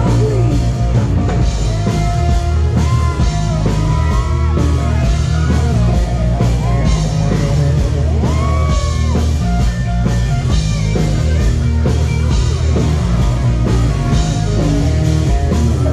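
Live rock band playing a song: a lead vocalist singing over drums, bass, guitar and keyboard.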